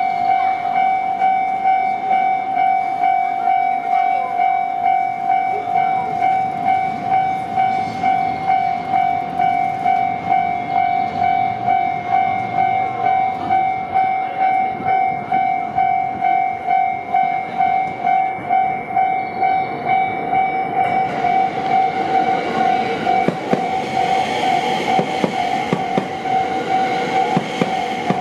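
Japanese level-crossing warning bell ringing, an electronic ding repeating about twice a second. About twenty seconds in, the Haruka limited express, an electric train, starts passing over the crossing: rising running noise and wheel knocks over the rail joints under the bell.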